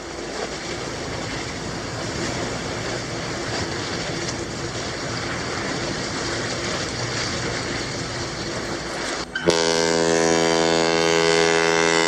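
Steady rushing noise of the ship under way, then about nine seconds in the ship's horn sounds one long blast of about three seconds, the loudest thing here.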